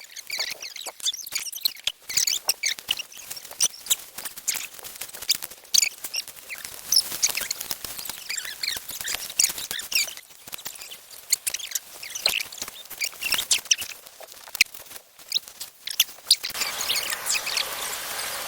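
Small birds chirping, over many sharp crackles and snaps. Near the end a steady rushing noise comes in.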